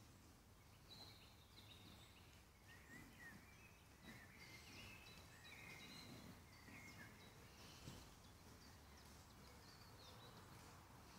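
Faint songbird song: many short chirps and warbled phrases from several birds, over low, steady background noise. One brief click about eight seconds in.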